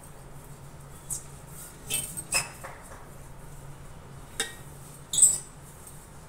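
Steel thali plate clinking about five times as it is handled and rubbed with oil by hand, the loudest clink near the end.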